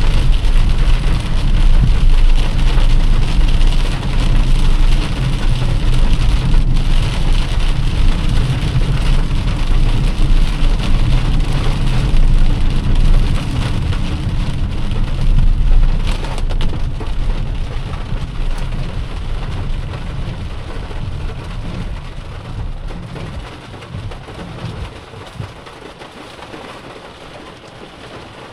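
Heavy rain pattering on a moving car, over a loud, deep rumble that dies away gradually over the last ten seconds or so.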